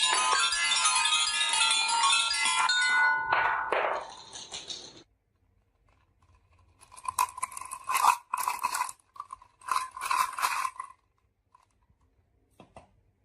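Many marbles clinking and rattling down a marble run, with ringing, chime-like tones. The dense clinking dies away between about 3 and 5 seconds in. A second, sparser run of clinks and ringing follows from about 7 to 11 seconds, and a couple of faint clicks come near the end.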